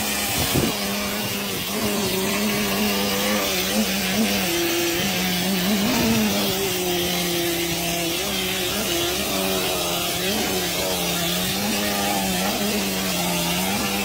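Plaster-spraying rig running: a steady motor drone that wavers slightly in pitch, under a constant hiss of compressed air blowing mortar out of the hand-held spray gun.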